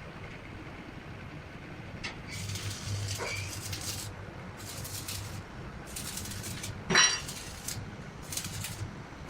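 Metalworking noise: several short bursts of hiss over a low hum, and one sharp metallic clank that rings about seven seconds in.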